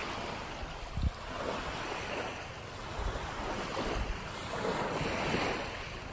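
Small waves lapping on a sandy shore, with wind buffeting the microphone in low rumbling gusts and a brief thump about a second in.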